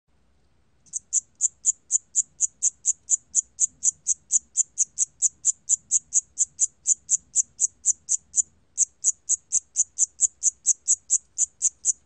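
Siam cricket calling at 28 °C: an even run of short, high-pitched chirps, about three a second. The chirps start about a second in and break off briefly about two-thirds of the way through.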